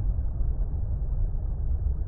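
Relaxing water rumble ambience: a steady, deep, muffled rumble of water noise with no separate events.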